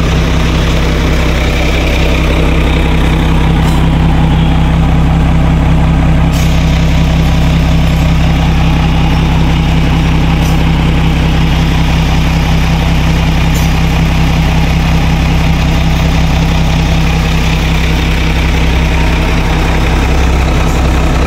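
Howo A7 truck's diesel engine idling steadily after a fault repair: it had been knocking, starting hard and stalling, and an injector has just been refitted.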